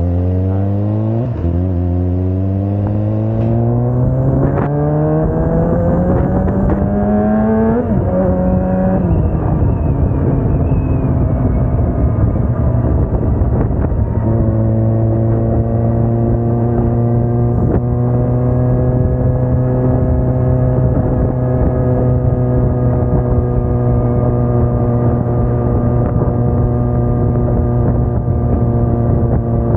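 Kawasaki Ninja sport bike's engine pulling hard through the gears, its pitch climbing and dropping back three times at quick upshifts, then holding a steady note at cruising speed. Wind rushes over the microphone throughout.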